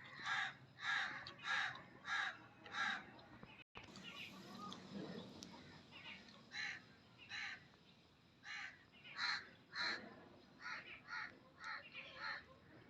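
Crows cawing: a run of five harsh caws about 0.6 s apart, then, after a few seconds' pause, more caws in uneven runs.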